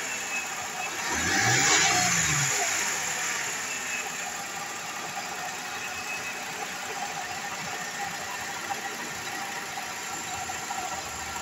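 2009 Toyota Camry's 3.5-litre V6 engine running with the hood open: revved once about a second in, the pitch rising and falling back within about a second and a half, then idling steadily.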